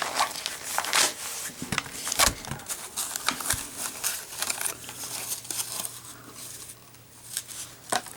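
Plastic blister pack being crinkled and pulled apart to free a lighter: a run of crackles and clicks, busiest in the first half and thinning out after, with a dull knock about two seconds in.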